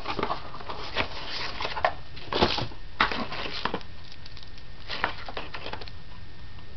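Cardboard tablet box and its packaging being handled: irregular rustling with a few sharp knocks, loudest about two and a half and three seconds in.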